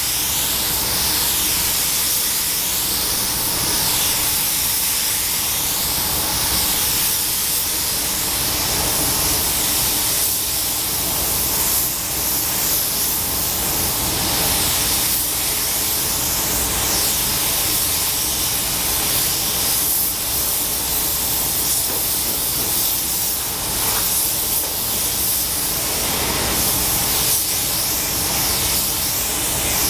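Gravity-feed paint spray gun hissing steadily as compressed air at about 2 bar atomises primer, with small brief dips in level between passes.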